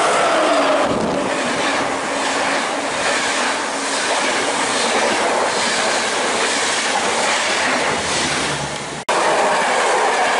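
Electric-hauled RegioJet passenger train running past a platform at speed: the steady rush of the yellow coaches going by, with a regular clickety-clack of wheels over rail joints. About 9 s in it breaks off abruptly and another locomotive-hauled express is heard passing.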